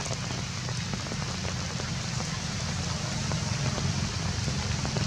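Steady rain falling on leaves, with many small drop ticks scattered through it over a low rumble underneath.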